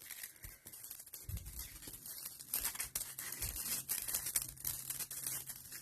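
Packaging being handled and fiddled with while someone tries to open it: light scratching and crinkling, with two soft thumps, over a faint low hum.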